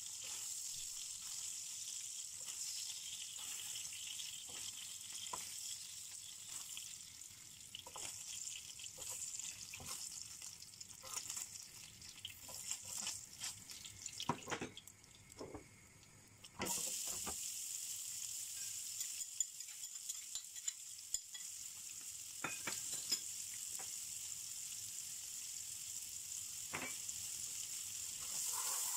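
Hot oil sizzling in a non-stick frying pan as pieces of salmon are fried and lifted out with tongs, with many small clicks and taps of the tongs against the pan. The sizzle drops away for about two seconds around the middle, then returns louder.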